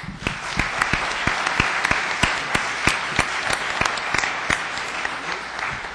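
Audience applauding: many hands clapping, starting at once and thinning out near the end.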